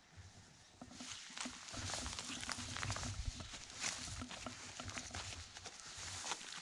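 Footsteps crunching and rustling through dry leaves, pine needles and twigs, in an uneven walking rhythm with small cracks, starting about a second in.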